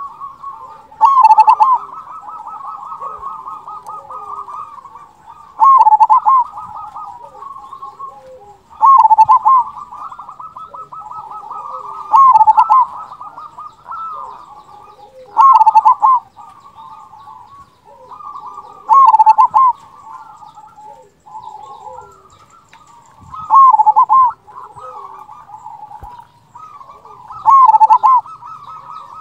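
Local zebra dove (perkutut) singing its rhythmic cooing song. A loud phrase ending in a big 'kung' note comes about every three to four seconds, eight times in all, with softer rolling coos filling the gaps.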